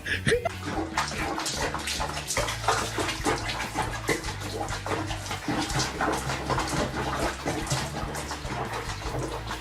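Water splashing and running, as in a bath, over a steady low background of music.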